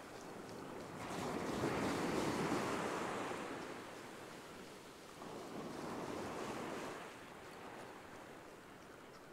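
Ocean surf breaking and washing up the sand: two waves, the louder swell of rushing water about a second in, a second, smaller one about five seconds in, each fading out.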